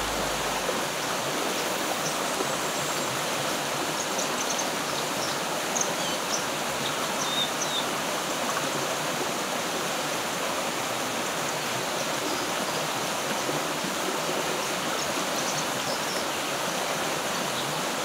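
River water flowing over rocks, a steady continuous rush, with a few faint short high chirps about four to eight seconds in.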